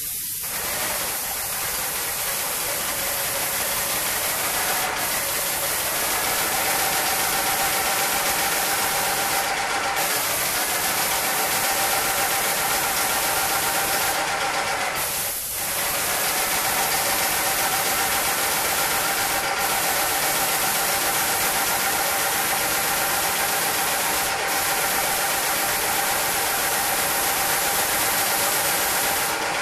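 Paint sprayer running steadily while a ceiling is sprayed: a continuous motor hum under a strong hiss. It starts abruptly, dips briefly about halfway through and stops near the end.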